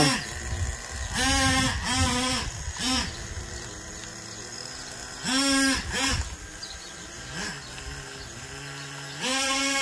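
Nitro RC truck's small glow-fuel engine revving in short blips, its pitch rising and falling about six times, dropping back to a low idle between them and holding a steadier higher rev near the end. The owner says it idles well but runs rich.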